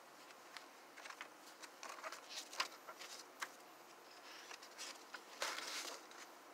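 Paper pages of a disc-bound journal being handled and turned: soft scattered rustles and ticks, with a longer page-turn rustle about five and a half seconds in.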